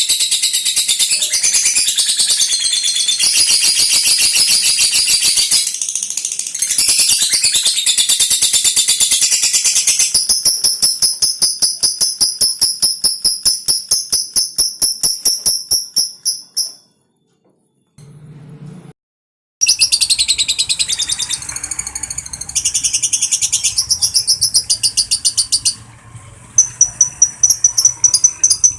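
Lovebird chattering in long, rapid, high-pitched trills (the ngekek song), with a break of about three seconds in the middle before it starts again.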